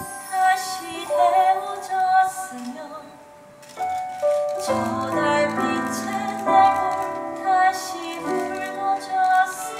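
A woman singing a musical-theatre ballad in Korean with live-sounding accompaniment. The accompaniment thins out briefly, then a fuller backing with low sustained notes comes in about halfway through.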